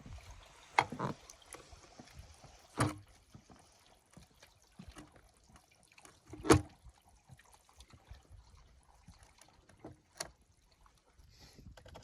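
Faint splashing and trickling of water, broken by four sharp knocks a few seconds apart, the loudest about halfway through.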